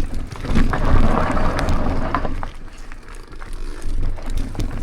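Wind rumbling on the microphone over scattered crunches and clicks of a bicycle being pushed down a steep, rough path.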